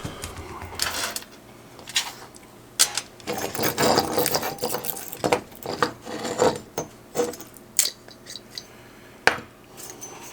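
Irregular clinking, rubbing and clattering of metal parts and tools as ignition coils and their bolts are taken off the coil mounting rail, with a few sharp knocks and a busy stretch in the middle.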